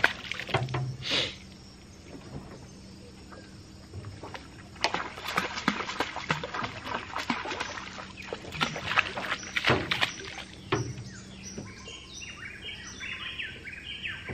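A fishing pole's tip beaten against the river surface, making a run of splashes and slaps that attract piranhas. A bird calls over and over near the end.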